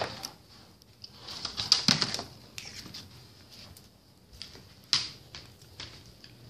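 Handling noise from a phone being moved about: rustling and a few sharp knocks, with the loudest about two seconds in and about five seconds in.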